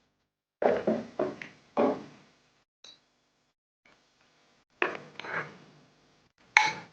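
Fluffy slime of glue and shaving foam being mixed and worked as borax activator goes in: three bursts of scraping, rubbing handling noise about a second each, with a short click in the middle.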